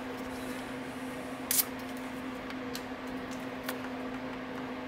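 Small clicks and rustles of wire and plastic crimp connectors being handled, the loudest about a second and a half in, over a steady low electrical-sounding hum.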